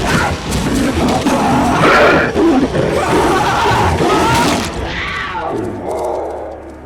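A mountain lion's cries and snarls as it is attacked, mixed over film score music; the sound fades down near the end.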